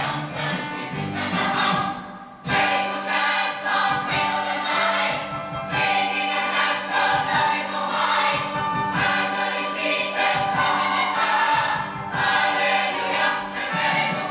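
Music with a group of voices singing together over an accompaniment. The music breaks off briefly about two seconds in, then comes back.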